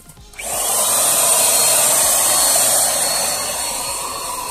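Handheld paint spray gun switching on about half a second in and then running with a steady rushing hiss and a thin whine, spraying Plasti Dip liquid rubber.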